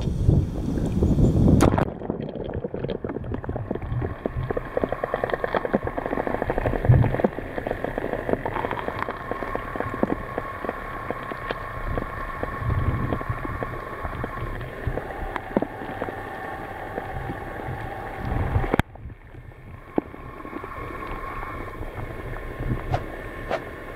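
A waterproof camera plunges into the water with a splash, then records muffled underwater sound: gurgling, scattered clicks and knocks, and faint steady hums. Near the end the sound drops abruptly to a quieter level.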